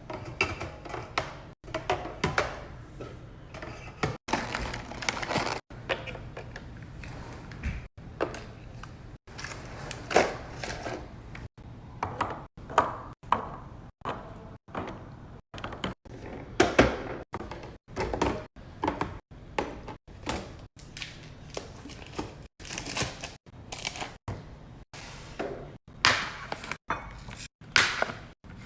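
Thunks and clacks of food containers and packages being set down and handled while a fridge is restocked, one or two knocks a second. Abrupt cuts break the sounds up.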